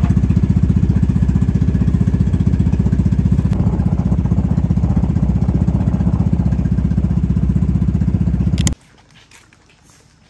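A small engine running steadily at close range with a fast, even pulse. It cuts off abruptly about a second and a half before the end, leaving only faint background noise.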